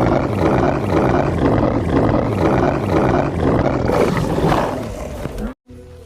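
Night Fury dragon's growling roar, digitally looped into a pulsing stutter about twice a second, fading after about four seconds and cutting out briefly near the end.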